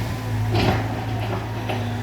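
Caterpillar excavator's diesel engine running steadily, with a sharp knock about half a second in and a few lighter clicks and knocks after it.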